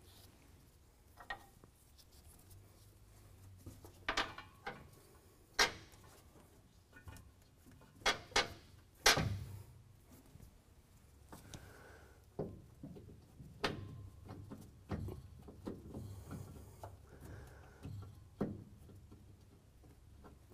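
Scattered metal knocks and clanks as a steel gooseneck hitch frame is held up against the truck's frame cross member and its side bolts are started by hand. The knocks come irregularly, with a pair about eight seconds in and the loudest just after, over a faint low hum.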